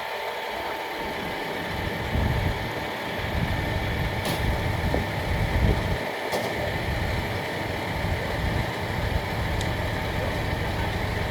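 Large vehicle engine idling steadily, with an uneven low rumble and a few sharp clicks.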